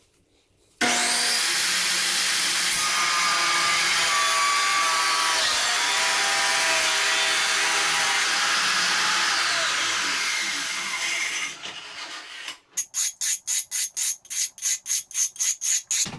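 A power saw cutting ceramic tile: the motor starts about a second in, runs steadily through the cut for around ten seconds, then winds down. Near the end come fast back-and-forth rubbing strokes, about three or four a second, as the cut edge is smoothed.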